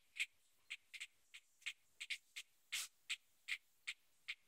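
Water from a ceiling leak dripping onto the lights, making faint, short, high clicks about three times a second, slightly irregular.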